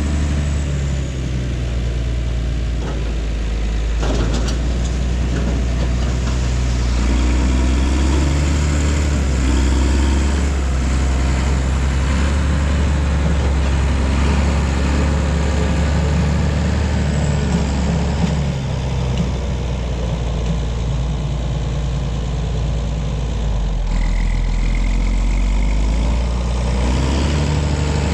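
Heavy diesel engine running steadily at a low, even speed. Near the end its note drops for a few seconds, then comes back up.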